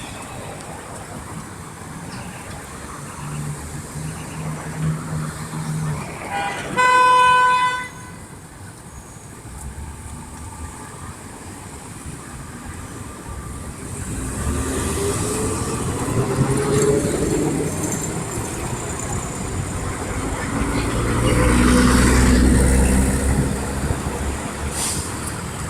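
A single vehicle horn blast lasting about a second, about seven seconds in, the loudest sound, over steady street noise. From about halfway on, motor vehicles pass by, their engine sound swelling and fading twice.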